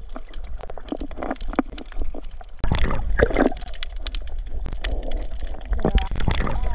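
Water splashing and gurgling around an underwater camera as a dog swims past, paddling, with irregular clicks and a steady rumble; it grows louder about two and a half seconds in.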